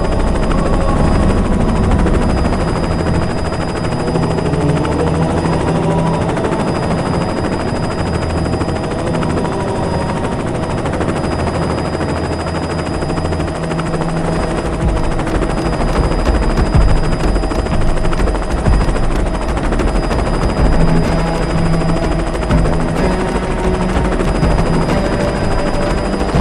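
Helicopter running, with a steady high whine over a low pulsing rotor sound.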